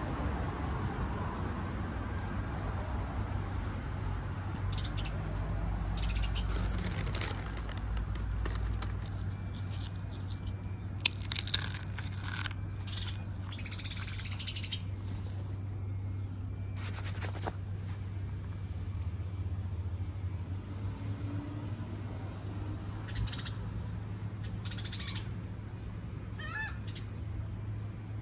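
Scattered crackles and crinkles from a bag of Sun Chips being handled, over a steady low hum. A short, wavering bird call comes near the end.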